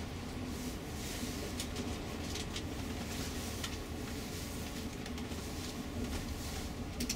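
Inside a moving tour coach: a steady low rumble of engine and road, with light clicks and rattles scattered through it.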